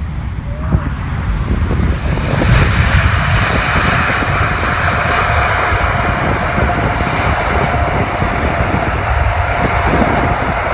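Jet engines of an Airbus A380 on landing approach: a steady jet noise that swells about two seconds in and holds, with a low rumble beneath and a steady whine running through it.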